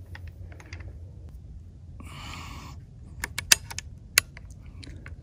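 Metallic clicks and a short sliding rasp as the AEA Element Max .50 caliber air rifle's action is worked to load and cock it, ending in a few sharp clicks a little past halfway.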